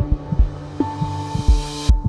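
Electronic intro music: held tones over low thumps that come in heartbeat-like pairs, with a hiss swelling up that cuts off suddenly near the end.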